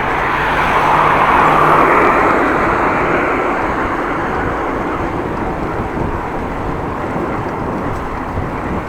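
Steady rush of wind and road noise on an action camera's microphone while riding a bicycle, swelling about a second in and then holding steady.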